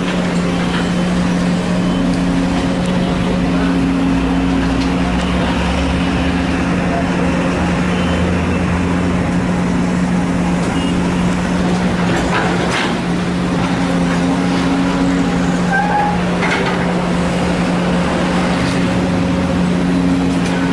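Heavy diesel engine of an excavator loading soil, running with a steady drone, with brief clatters about twelve and sixteen seconds in.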